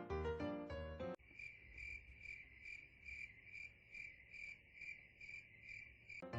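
Cricket chirping steadily, about two or three chirps a second. Music cuts off about a second in and comes back at the very end.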